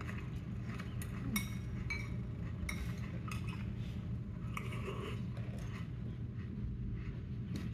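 Cutlery and dishes clinking at a breakfast table in a film soundtrack: scattered short light clinks, some briefly ringing, over a steady low hum, heard through cinema speakers.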